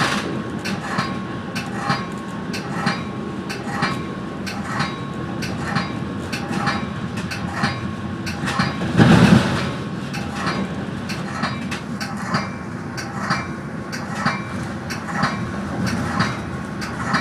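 Metra commuter train cab car rolling over track, its wheels clicking steadily over rail joints and yard switches under a continuous rumble. About nine seconds in there is a brief louder rush.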